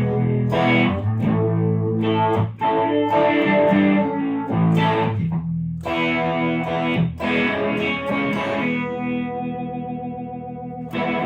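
Electric guitar (Telecaster) through an AionFX Sunstone phaser, a clone of the EHX Small Stone, into a Fender Hot Rod Deluxe tube amp, playing chords struck every second or so. One chord is left to ring out near the end before another is struck.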